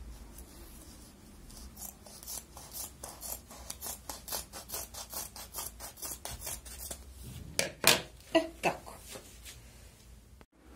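Scissors cutting through quilted lining fabric in a run of short, quick snips, about three or four a second, with a few louder snips near the end.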